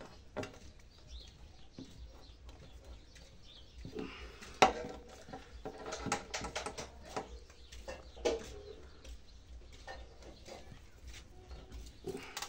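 Scattered light clicks, snips and rustles from hands and small cutters working in the foliage of a creeping-juniper bonsai, with one sharper click about four and a half seconds in.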